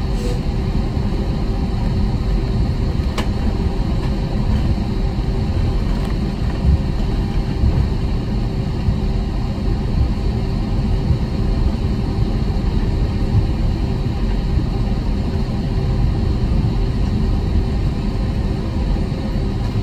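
Steady low rumble inside the cabin of a JetBlue Airbus A321 taxiing, its IAE V2500 engines running at taxi power, with a faint steady hum over the rumble.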